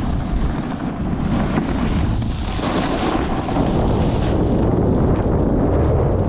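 Wind buffeting the microphone of a camera moving fast downhill, a heavy steady rumble. Under it is the hiss of a rider sliding over packed snow, which swells about halfway through.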